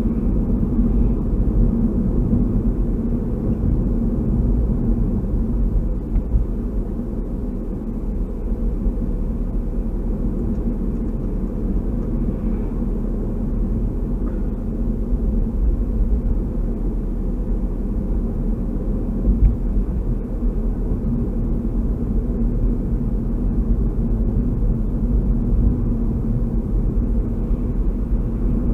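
Steady low rumble of a car's road and engine noise, heard from inside the cabin while driving at an even pace.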